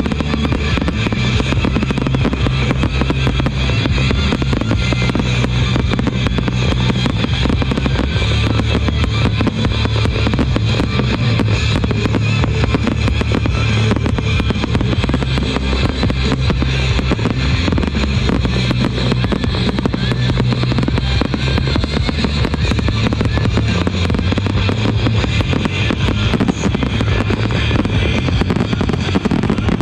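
Loud music with a steady bass line plays over the bangs and crackling of an aerial fireworks display, with shell bursts and crackle effects going off throughout.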